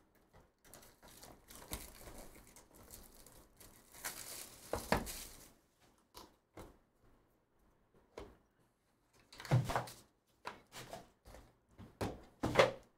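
Plastic shrink wrap crinkling and tearing as it is pulled off a cardboard trading-card box, then cardboard handling and a few short knocks, the loudest near the end as a hard plastic card slab is set down on the table.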